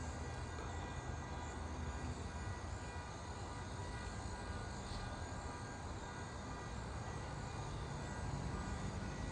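Steady low rumble of an idling vehicle engine, with a few faint steady high tones above it.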